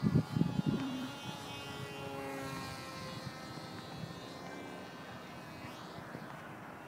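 Electric motor and propeller of a small foam RC flying wing whining steadily overhead, the pitch drifting up and down a little as it flies. Loud low thumps of buffeting on the microphone in the first second.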